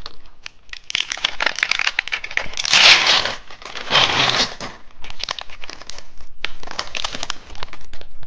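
Crinkly plastic wrapper of a small gummy candy pack being handled and pulled open: dense crackling and rustling, with louder bursts about three and four seconds in.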